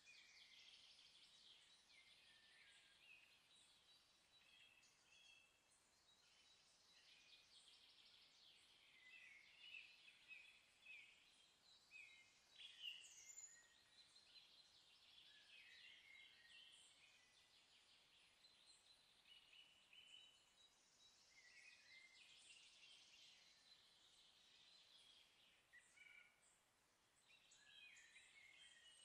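Faint birds chirping: many short, high calls throughout, with one louder call about thirteen seconds in.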